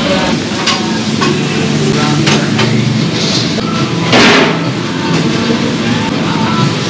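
Busy commercial-kitchen background noise: a steady low hum of equipment, indistinct voices, and scattered clicks and clatter, with a sudden loud burst of noise about four seconds in.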